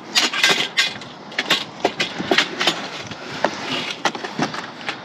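Scrap metal clattering and clanking as pieces are handled and dropped: a rapid, irregular run of sharp knocks and rattles.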